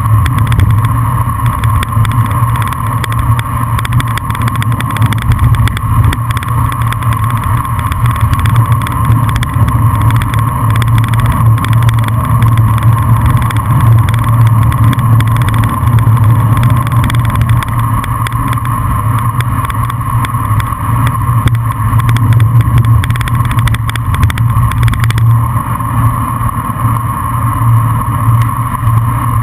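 Steady, loud wind rush buffeting a bicycle-mounted camera's microphone during a fast downhill coast.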